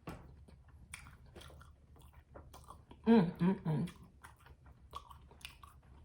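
Close-up wet chewing and biting of a stuffed tortilla quesadilla, many small mouth clicks and smacks. About three seconds in, a short three-part voiced hum rises above the chewing.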